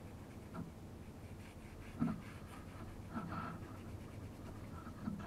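Faint scratching of a small brush dabbing pickling gel onto a stainless steel weld seam, with a soft knock about two seconds in.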